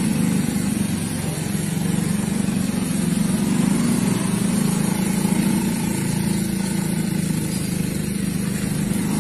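An engine running steadily at idle, an even low hum with a fine rapid flutter and no change in speed.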